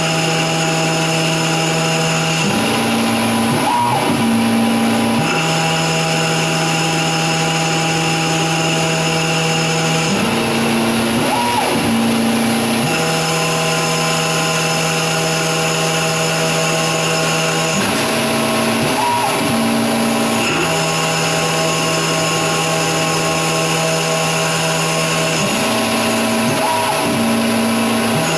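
Grizzly G0602 CNC lathe running a profiling cut on aluminium tube: a steady machine whine, whose pitch changes for a couple of seconds four times, about every seven to eight seconds, as the passes repeat.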